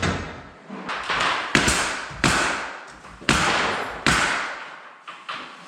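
Nails being driven into an interior door frame: about six sharp knocks spaced roughly a second apart, each trailing off briefly.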